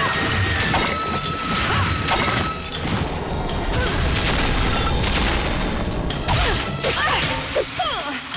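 Cartoon action background music mixed with repeated crashing and booming sound effects of a fight.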